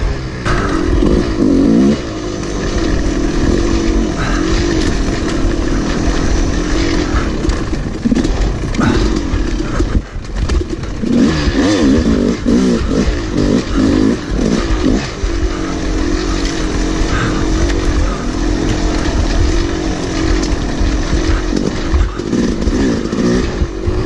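Yamaha YZ250 single-cylinder two-stroke dirt bike engine being ridden, its revs rising and falling with the throttle, with a brief drop about ten seconds in.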